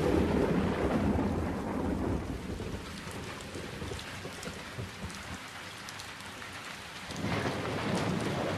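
Steady rain with low thunder rumbling, strongest in the first two seconds and rising again about seven seconds in.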